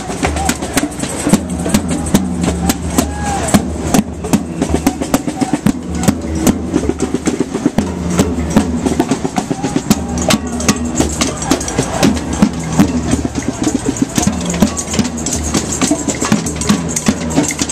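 Several drums beaten together in a fast, busy, uneven rhythm, with hits coming many times a second.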